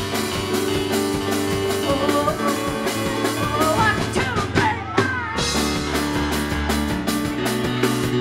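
Live rock band music from a keyboard and drum kit, with a woman singing in the middle. The drums and cymbals drop out for a moment about five seconds in, then the full band comes back in.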